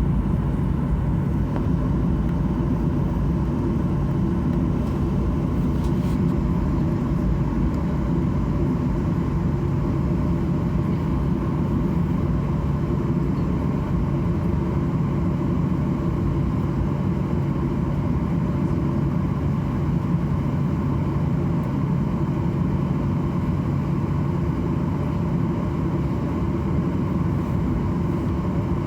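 Boeing 737-800 jet engines running steadily, a continuous even drone with a low hum that holds one pitch throughout.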